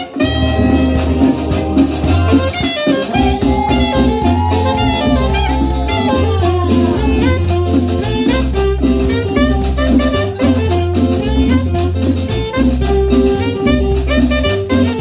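Saxophone playing a cumbia song intro melody over a backing track with a steady bass line and drums.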